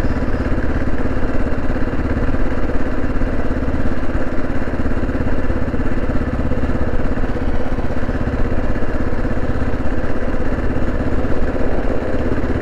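Kawasaki KLR 650's single-cylinder four-stroke engine running at a steady, unchanging speed, with no revving.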